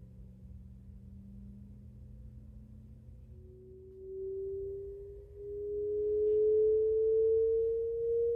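A slow rising sine-tone sweep played through an exciter fixed to the back panel of a Realistic MC-1800 Mini Mach One speaker cabinet, the panel itself sounding the tone. It is faint at first, then becomes much louder and higher from about halfway in.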